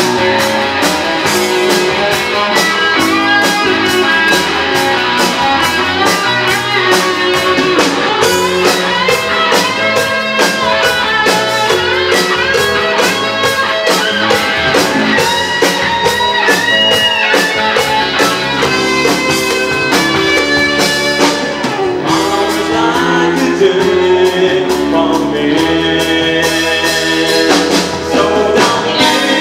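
Live rock band playing loud: electric guitars over a drum kit's steady beat.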